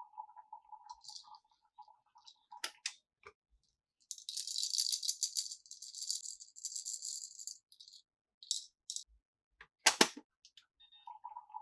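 Small hard objects rattling for about three and a half seconds, with scattered clicks of handling before and after and one loud click near the end. A faint steady tone sounds at the start and again near the end.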